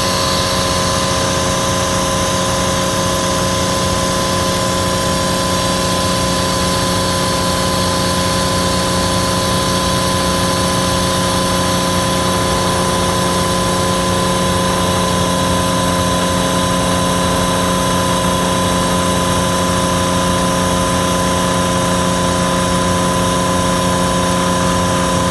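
Rainman portable reverse-osmosis watermaker running steadily, its electric motor and high-pressure pump humming with constant tones. It is held at about 55 bar (800 psi), the working pressure at which it makes fresh water from seawater.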